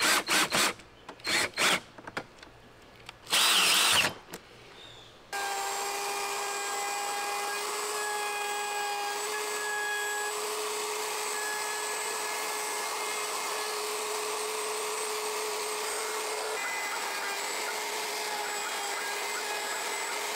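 A cordless drill spins up in several short bursts, driving the screws that hold a hinge template to a door edge. About five seconds in, a Ryobi router starts cutting and runs on with a steady whine, routing a hinge mortise into a solid core wooden door.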